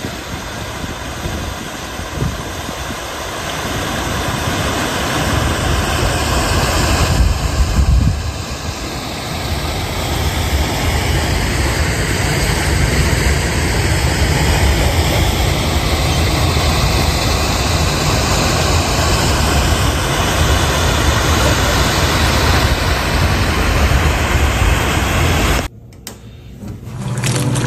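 Steady, loud rushing noise of a stream pouring over a small weir, with a deep rumble underneath; it cuts off abruptly near the end.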